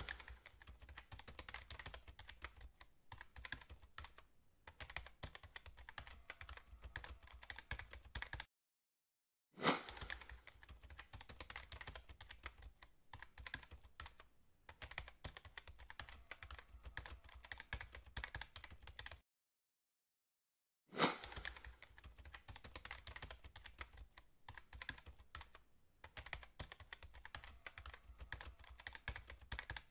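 Computer keyboard typing sound effect: fast, uneven key clicks in three long runs, each opened by a short sharp hit and broken by a second or two of silence.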